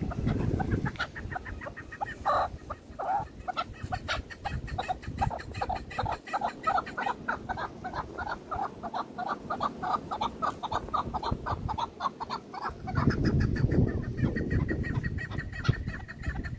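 Chukar partridges calling: a long run of short clucking chuk notes. The notes are sparse at first, then become a steady rapid series of several a second. A louder low rumble comes in near the end.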